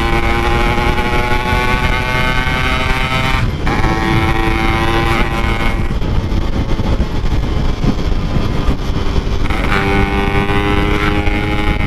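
Yamaha RX-King two-stroke motorcycle engine with a Packing Power aftermarket exhaust, running under load on the move. Its note breaks off and picks up again about three and a half seconds in, near six seconds, and near the end, as at gear changes. A steady low rumble of wind and road lies under it.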